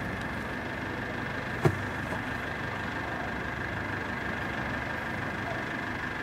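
Steady outdoor rumble and hiss with a faint steady high tone, like a distant idling engine, broken by one sharp crack about a second and a half in.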